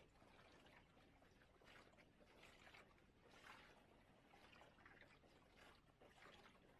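Faint water lapping and swishing against the hull of a small sailing boat under way, in irregular splashes a few times a second.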